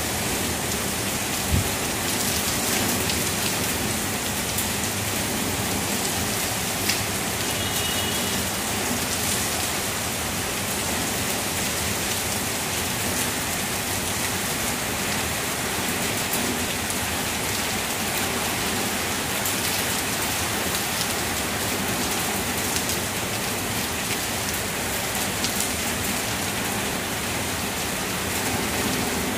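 Heavy rain pouring steadily onto tree leaves, an even hiss that does not let up. Two brief knocks stand out, one about a second and a half in and one near seven seconds.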